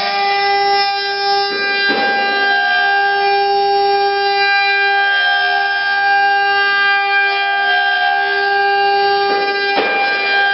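Spindles of an 8-spindle rotary CNC router, 2.2 kW water-cooled, running with a steady high-pitched whine as the bits carve square wooden blanks. Brief rasping bursts of cutting noise come about two seconds in and again near the end.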